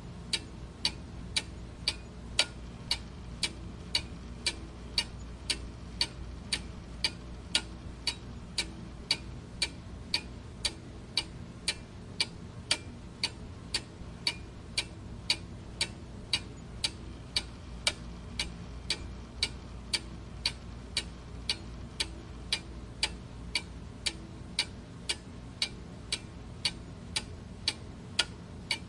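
Clock ticking steadily, about two even ticks a second, over a low steady background hum.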